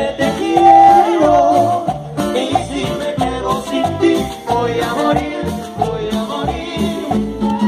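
Live son cubano band playing a dance groove: flute, acoustic guitar, upright double bass and congas.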